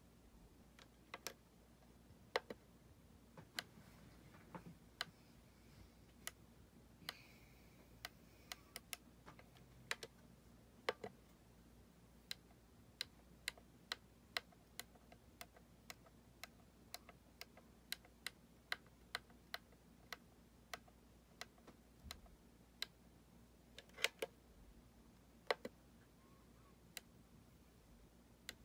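Rotary selector knob on a Mooer GE200 multi-effects pedal clicking through its detents as the effect models are scrolled, giving sharp irregular clicks, roughly one or two a second, over near silence.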